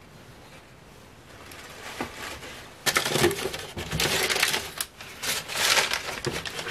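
Hands rummaging in a box of packing material, which rustles and crinkles. It starts softly about two seconds in and turns into loud, irregular crackling from about three seconds in.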